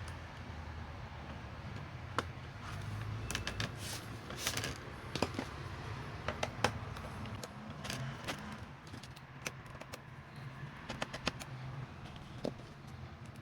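Irregular light clicks and taps of small hard parts being handled, with a low steady hum underneath.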